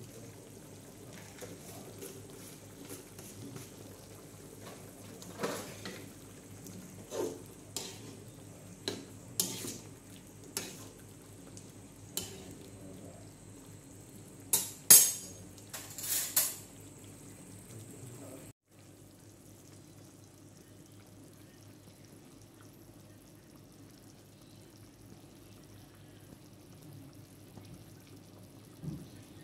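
Metal spatula knocking and clinking against an aluminium wok of simmering beef stew, about a dozen sharp strikes over some fifteen seconds, the loudest near the middle. Then a sudden break, after which only a steady low hum remains.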